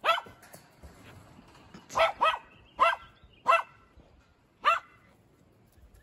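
A puppy barking: about six short, high barks, one at the start and the rest coming quickly between about two and five seconds in.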